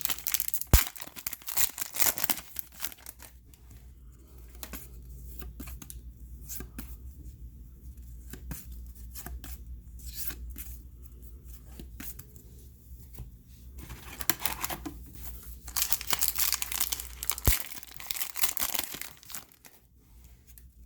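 Foil wrappers of trading-card packs being torn open and crinkled, in two bouts: one near the start and a longer one about three-quarters of the way through, with quieter rustling of handled cards in between over a low steady hum.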